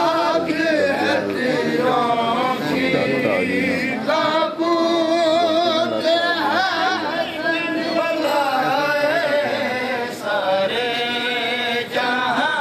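Men's voices chanting a noha, a Shia mourning lament, with a lead voice holding long, wavering notes.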